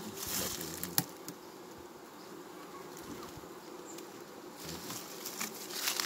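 Honeybee colony in an opened wooden hive buzzing in a steady hum. A sharp click comes about a second in, and rustling handling noise from hands working among the frames and comb builds near the end.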